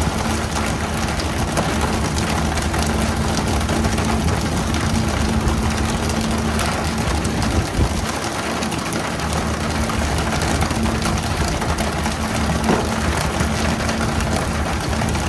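Boat engine running steadily at a low hum under a constant hiss of water; the low hum briefly drops away about halfway through.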